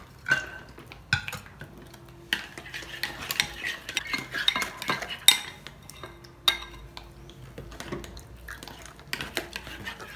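Plastic spoons stirring thick glue slime in two glass bowls, knocking and scraping against the glass in irregular clinks, some ringing briefly. The slime is being mixed with activator.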